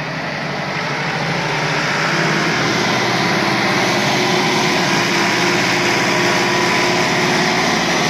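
Massey Ferguson farm tractor's diesel engine running under load as it reverses a trailer loaded with sand. It gets louder over the first two seconds, then holds a steady note.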